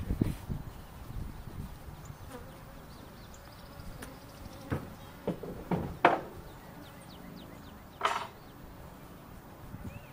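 Honeybees buzzing around a trapout box and the bee-covered tree trunk, with a few short, louder bursts, the loudest about six seconds in.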